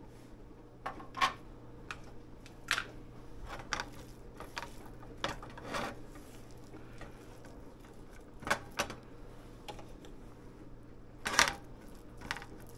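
Kitchenware being handled: about a dozen irregular clinks, knocks and short scrapes, the loudest about a second in and near the end.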